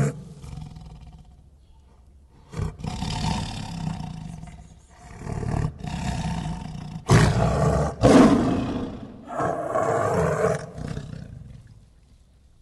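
A big cat giving a series of about five loud, harsh calls, each a second or two long, with short gaps between them; the loudest come about seven to nine seconds in.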